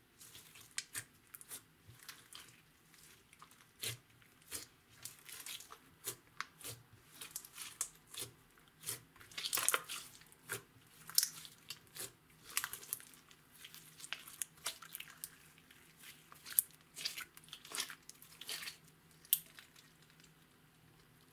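Hands kneading and pressing a mass of glittery, bead-filled clear slime: irregular sticky crackles and small pops, busiest in the middle and dying away near the end.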